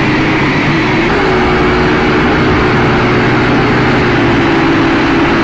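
Small quadcopter drone's motors and propellers buzzing loudly, heard close up from the drone itself, a steady whine whose pitch steps up about a second in and then slowly eases down.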